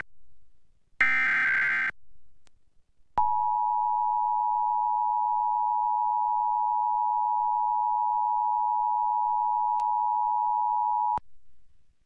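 Emergency Alert System test: one buzzy burst of SAME header data lasting about a second, starting about a second in, then after a short pause the EAS attention signal, two steady tones sounded together, held for about eight seconds and cutting off abruptly near the end.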